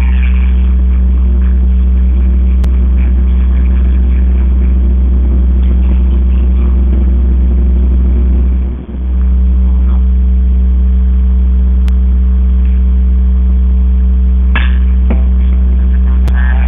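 Loud steady electrical hum that drowns out the faint background, dropping out for a moment about nine seconds in. A couple of short sharp knocks sound faintly near the end.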